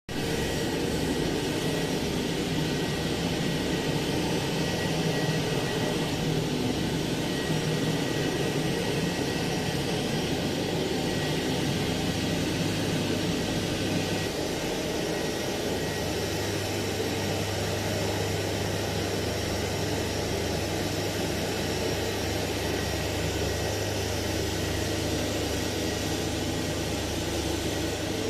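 Hamra HM61 vacuum cleaner motor running steadily, a continuous rushing noise with a faint steady whine; about halfway through the low hum becomes steadier.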